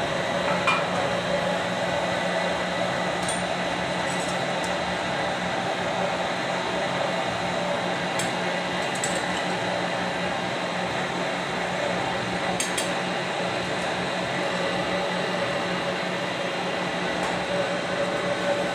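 Metal-melting machine for jewellery casting running with a steady hum and whir while it melts metal, with a few faint clinks.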